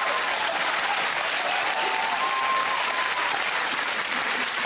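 Studio audience applauding and laughing, a steady wall of clapping with a few voices rising over it.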